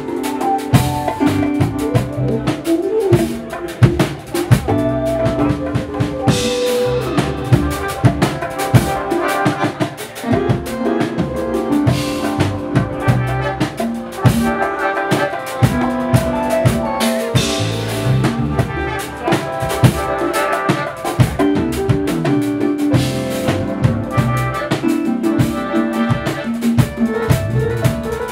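A live jazz-funk band playing a groove: drum kit and hand percussion driving it, with bass, electric guitar and horns over the top.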